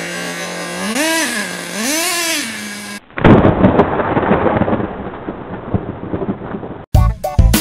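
Small nitro engine of an RC monster truck running at a steady high pitch, then revving up and back down twice, about a second apart, as the truck jumps. It cuts off abruptly about three seconds in and gives way to a loud, dense noise effect, and music with drum hits starts near the end.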